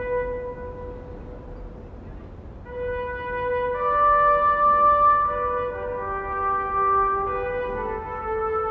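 Background music of slow, held notes: a single sustained note dies away over the first two seconds, then fuller held chords come in and shift to new notes every second or so.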